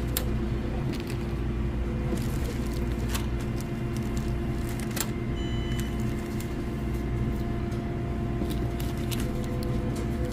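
Steady low machinery hum with a few light clicks and taps scattered through it.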